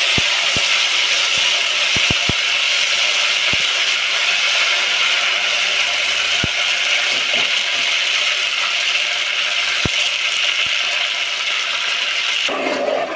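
Fried-onion paste sizzling in hot oil in a pan: a loud, steady frying hiss with a few light clicks of a spoon on the pan. It stops abruptly near the end.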